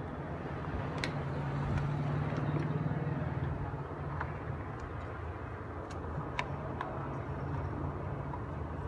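Steady low rumble of background road traffic, with a few sharp light clicks as the speaker's plastic casing and parts are handled during reassembly.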